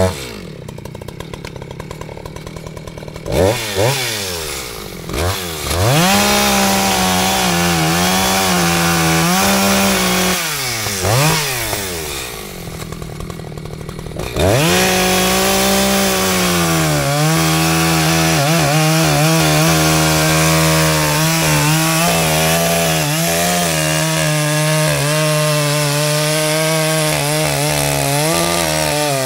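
Echo CS-620PW two-stroke chainsaw idling, blipped twice, then held at high revs. It drops back to idle for a few seconds midway with one more blip, then runs at full throttle through the rest, pitch sagging a little as it bites into the stump wood.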